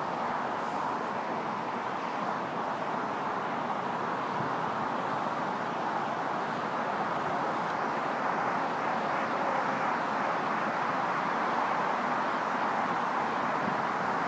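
Steady road traffic noise, an even wash of passing cars with no single vehicle standing out.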